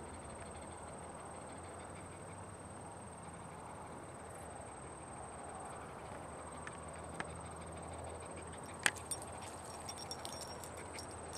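Faint, steady outdoor hiss, then footsteps crunching on a dry dirt and gravel trail from about nine seconds in.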